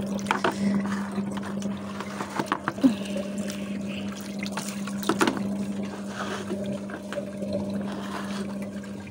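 Water running from a hose into a plastic tub that is filling up, with a steady low hum underneath and a few small knocks.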